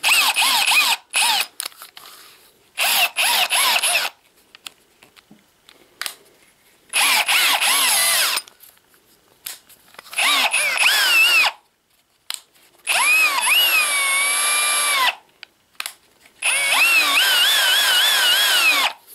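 Parkside Performance brushless cordless drill running unloaded in about six short bursts of one to two and a half seconds, its motor whine rising and falling in pitch as the variable-speed trigger is squeezed and eased.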